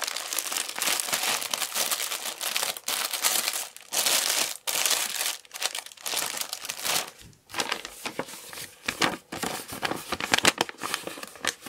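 Plastic-covered diamond painting canvas crinkling and crackling as it is taken out of its box and handled. The crackling is loudest in the first half, eases off a little past the middle, and picks up again near the end.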